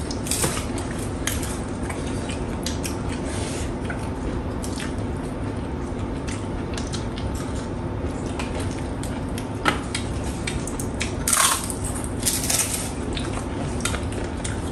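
Close-up eating sounds: chewing and crunching food, with scattered light clicks of dishes and cutlery. The crunching is loudest about two-thirds of the way through, over a steady low hum.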